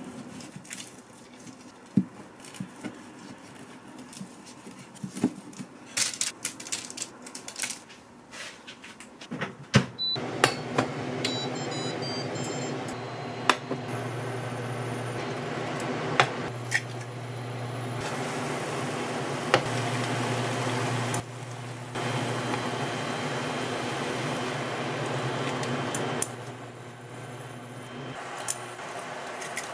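Kitchen knife cutting chicken tenders on a plastic cutting board: a series of irregular knocks. About ten seconds in, a few short electronic beeps from a Samsung induction cooktop, then its steady hum with oil sizzling in a frying pan and water heating in a pot.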